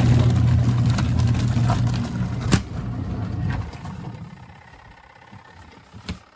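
A motor hums steadily, then dies away about four seconds in, with a single click partway through.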